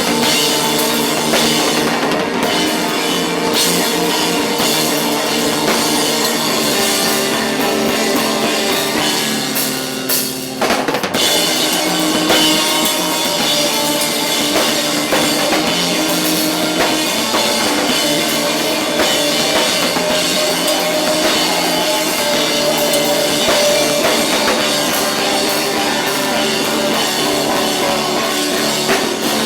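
Rock band playing loudly, with a drum kit and guitar, with a short break in the sound about ten seconds in before it comes back in full.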